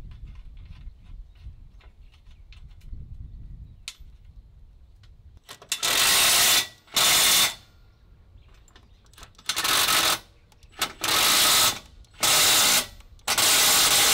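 Cordless drill run in about seven short, loud bursts, drilling holes through an aluminium flatbed sill into the truck frame. Before the drilling starts there are only faint clicks of handling.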